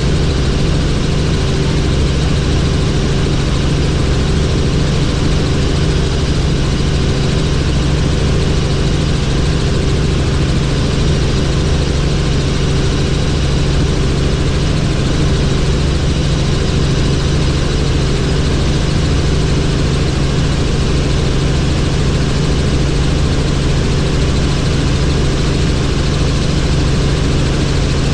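Helicopter in flight: a steady, loud drone of engine and rotors over a constant rushing hiss, with no change in pitch.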